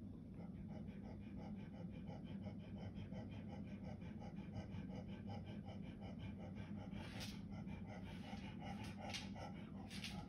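Rapid, even panting, about five breaths a second, over a steady low hum. A few short rustles come near the end.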